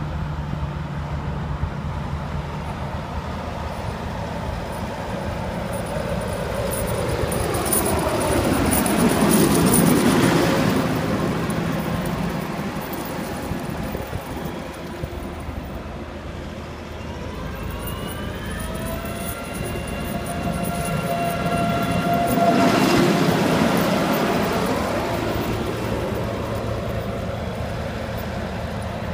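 Tractor with a mounted Aldo Annovi snow blower running and passing close by twice, the diesel engine and blower swelling to a peak and falling away each time. Before the second pass a whine rises and then holds a steady pitch.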